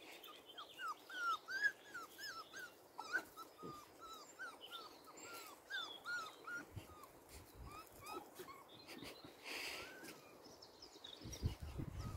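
Young puppies whimpering: a rapid series of short, high squeaks that rise and fall in pitch, thinning out after about eight seconds, with a few low thumps near the end.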